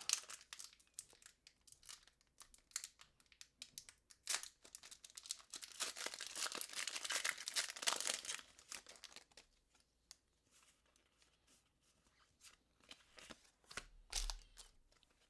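Pokémon TCG booster pack's foil wrapper crinkling and tearing open, with a dense run of crackling about halfway through. It then goes mostly quiet, with a few light rustles near the end.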